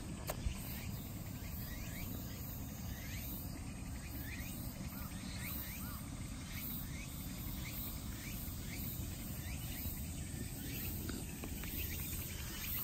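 Insects chirping outdoors: a stream of short repeated chirps and a high pulsing trill over a low, steady background rumble. There is a single sharp click just after the start.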